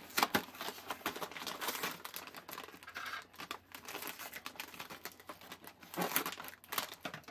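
Crinkling and rustling of a Nilla Wafers box and its packaging being handled and opened, irregular throughout, a little louder near the end.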